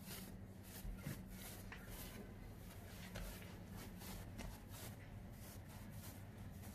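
Faint soft rubbing and scuffing of hands rolling and stretching soft yeast dough on a countertop, over a low steady hum.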